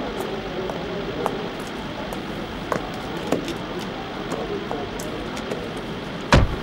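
People climbing into the back seat of a vintage car, with a few small knocks and rustles over a steady background hiss, then a single heavy thump near the end as the car's rear door is shut.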